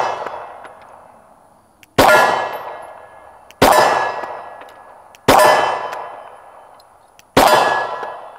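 Glock 19 Gen 5 9mm pistol fired four times in slow, deliberate shots about one and a half to two seconds apart. Each shot is followed by steel plate targets ringing and fading away.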